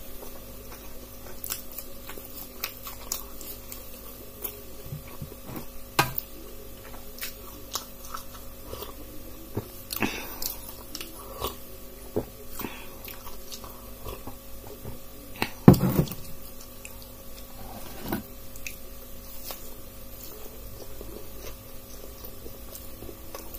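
A person chewing and biting fried pakoras (gram-flour fritters of potato, onion and green chilli) close to the microphone, with many small crunches and mouth clicks over a faint steady hum. A sip of milky tea comes partway through, and one louder thump about two-thirds in.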